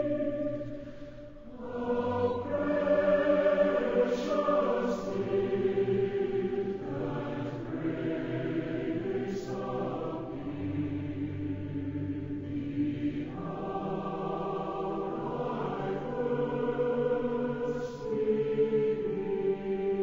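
Slow background music with a choir singing long, held chords that change every few seconds. It fades down briefly about a second in, then swells back.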